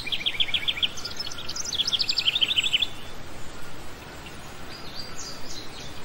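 Small cage birds chirping: a quick trill of rapid chirps in the first second and a longer one from about one and a half to three seconds in, sliding slightly down in pitch, then fainter calls near the end, over a steady background hiss.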